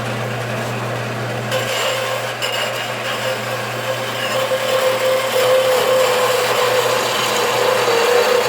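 Band saw running with a steady motor hum. About one and a half seconds in its blade starts cutting through a thick brass bar, a continuous rasping hiss with a steady whine over it.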